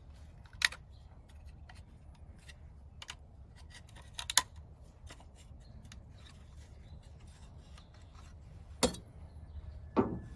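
Small clicks and scraping of plastic and metal as the retaining clip on a Toyota Tundra tailgate lock is worked loose, with four sharper clicks spread through.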